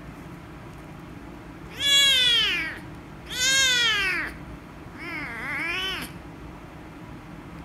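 Young kitten meowing three times as its head is petted: two loud meows about a second and a half apart, then a softer, wavering one.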